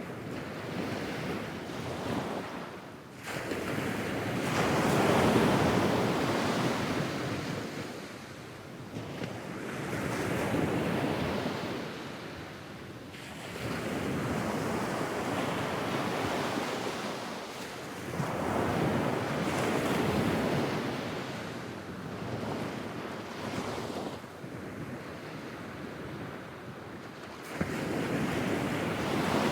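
Medium-sized sea waves breaking and washing up a sandy beach at a regular pace, the rush of water swelling and ebbing about five times, a surge every few seconds.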